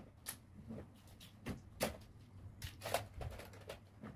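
Plastic toys clacking and knocking against each other as they are picked up and sorted: a string of irregular, sharp clacks.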